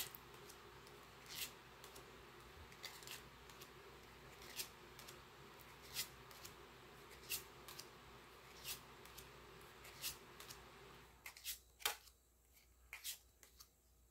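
Pokémon trading cards being flipped through one at a time, a short, faint card snap about every second and a half. A faint steady hum behind them cuts off about eleven seconds in.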